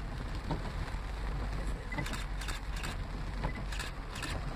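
Vehicle driving through a heavy downpour: a steady low rumble of engine and tyres under an even rain hiss, with irregular brief higher hisses over it.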